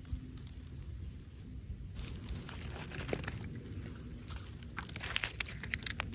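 Footsteps crunching through dry leaf litter and twigs, coming closer: scattered crackles from about two seconds in, becoming denser and louder near the end.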